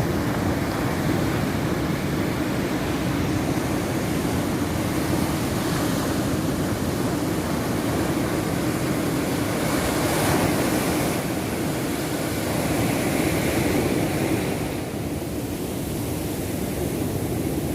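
Sea surf washing steadily onto the beach, mixed with wind on the microphone. The sound swells a little twice in the middle.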